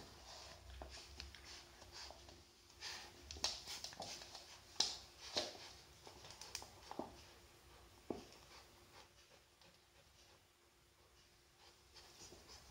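Swiss White Shepherd puppy tugging and chewing on a braided rope toy on a wooden floor: faint scattered scuffs, rustles and clicks, busiest in the middle and quieter near the end.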